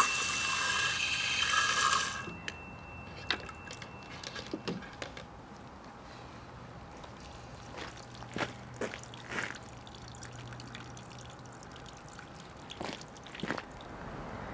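Pumped water gushing from a hose into a plastic jug, cutting off sharply about two seconds in, followed by scattered drips and trickles.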